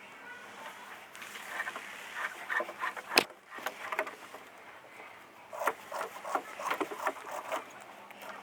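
Footsteps crunching over dry ground in two irregular stretches, with one sharp crack a little after three seconds in.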